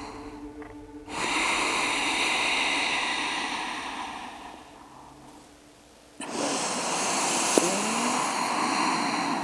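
Two long, deep breaths close to a clip-on microphone during a yoga stretch with the back rounded: the first begins about a second in and slowly fades away, the second starts abruptly about six seconds in.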